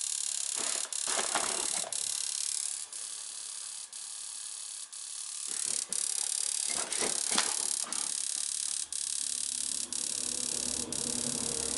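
Steady hiss from a newly installed gas boiler trying to light, with air still in the gas line so the burners have not yet caught, and faint clicks about once a second. A low hum joins in during the last few seconds.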